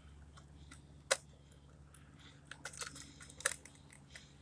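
Dry grass and weeds crackling as fingers push them into the hopper of a toy rear-loader garbage truck. There is one sharp click about a second in, and a run of crackles and clicks near three seconds.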